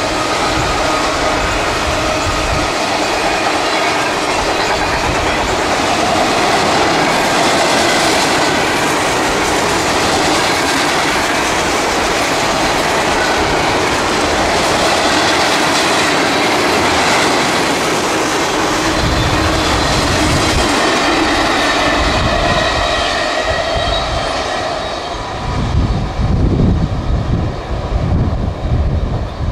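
Freight train cars rolling past at close range, a steady rumble of wheels on rail with thin, steady high ringing tones from the wheels. Near the end the last cars pull away and the sound breaks into uneven low gusts of wind on the microphone.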